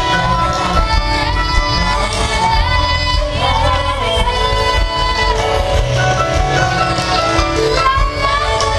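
Live band with a lead singer, played over large outdoor concert speakers and heard from within the crowd: a sung melody over a steady bass line.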